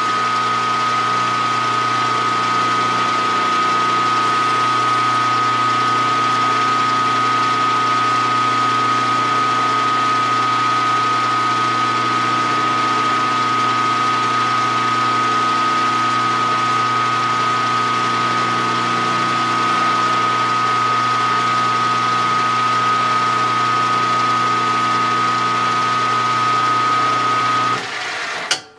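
Milling machine spindle running steadily with a high, even whine while a drill bit bores a hole in a metal plate; the machine is switched off near the end and runs down.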